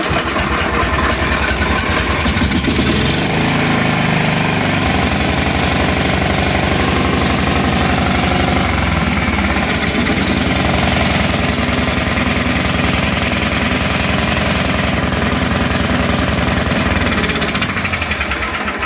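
John Deere L110 riding mower's Kohler Command 17.5 engine running very poorly, with an uneven low pulse, after starting on carb cleaner with the choke on. The mechanic suspects stale, water-laden fuel. The sound drops off near the end.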